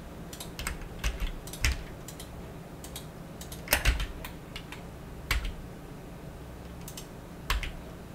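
Computer keyboard keystrokes: single key presses at irregular intervals, a few of them louder with a low thud.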